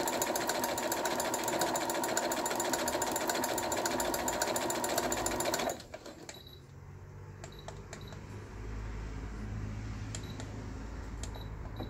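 Brother XR1355 computerized sewing machine stitching at speed with rapid even needle strokes, sewing its overlock stitch as a test run after repair of a burn-out from being plugged into 220 V; it stops abruptly about six seconds in. After that, a low hum and a few clicks with short high beeps as the stitch-selection buttons are pressed.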